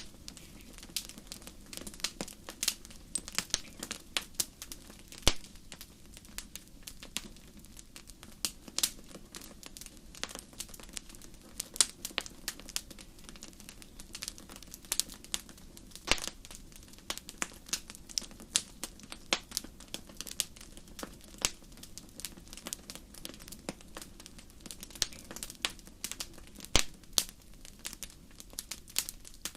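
Fireplace fire crackling: irregular sharp pops and snaps, several a second, some louder than others, over a steady low rush of the flames.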